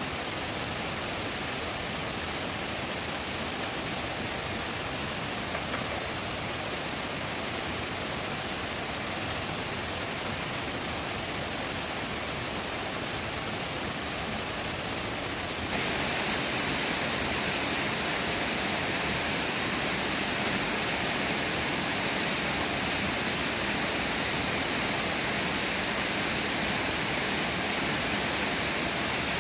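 Steady rushing outdoor noise, with a high chirping that comes and goes in short runs through the first half. The noise steps up louder a little past halfway.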